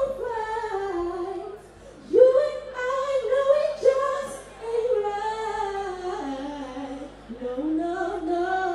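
A woman singing into a microphone through a stage PA, holding long notes that slide between pitches, with a brief pause about two seconds in.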